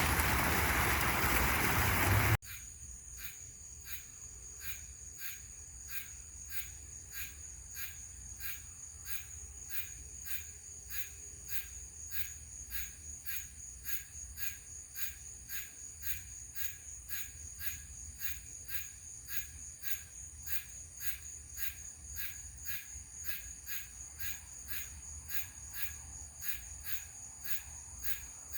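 A loud, steady rushing noise cuts off abruptly about two seconds in and gives way to insects chirping in an even rhythm, about two chirps a second, over a steady high-pitched hum.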